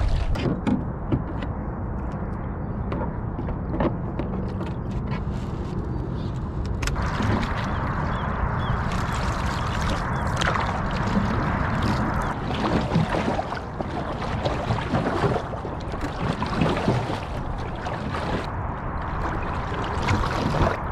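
Water rushing and sloshing along a sprint canoe's hull, with irregular splashes from the paddle strokes and wind buffeting the microphone.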